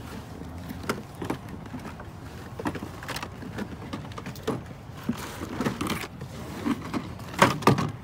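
Small diecast toy cars being handled and set down on a table, giving irregular light clicks and clacks. A louder cluster of knocks comes near the end.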